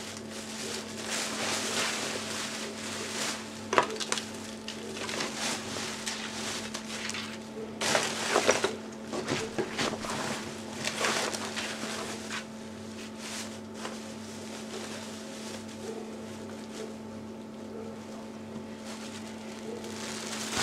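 Clothing and costume fabric rustling and being handled as someone dresses, with a sharp click about four seconds in and a burst of louder handling around eight to nine seconds, over a steady low electrical hum.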